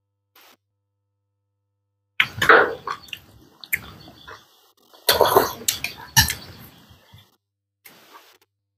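Close-mic eating sounds: two loud slurps, starting about two and five seconds in, with lighter chewing and small spoon-and-bowl clinks between.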